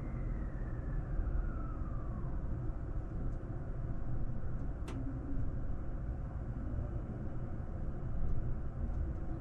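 Electric train running, heard from inside the carriage: a steady low rumble, with a faint whine falling in pitch over the first two seconds and a single click about five seconds in.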